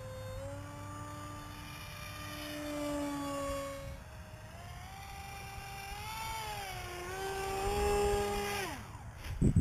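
Electric motor of a foam RC F-35 jet model whining in flight, its pitch rising and falling with the throttle. Near the end the pitch drops steeply as the power is cut for landing, followed by a few sharp knocks as the model touches down on grass.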